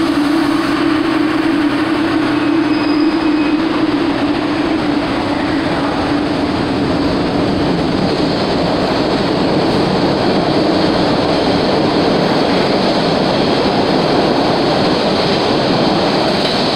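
MBTA Red Line heavy-rail subway train running out of an underground station platform close by: a steady low hum that fades over the first several seconds while the rumble and clatter of steel wheels on rail takes over.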